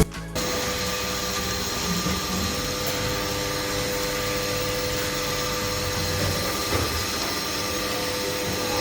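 CNC milling-router spindle running steadily, its end mill cutting a D16T duralumin block: an even whine with a constant tone over a continuous cutting hiss.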